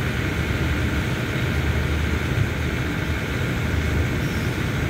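Diesel engines of a passenger train standing at the platform, idling: a steady low drone that does not change.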